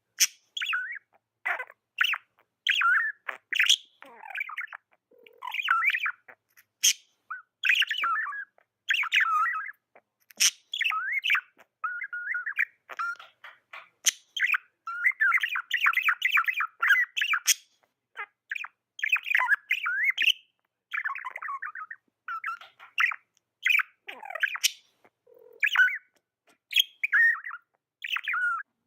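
Budgies (budgerigars) chirping and chattering in quick, varied bursts of short warbled calls with brief gaps, with a few sharp clicks among them.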